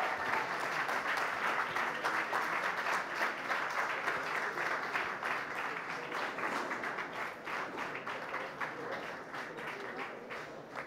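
Audience applauding, the clapping gradually dying down toward the end.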